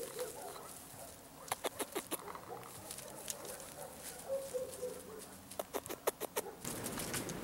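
Dry grass and twigs crackling and snapping as something moves through dry scrub. The sound comes in two runs of quick sharp clicks, one about a second and a half in and another near the end.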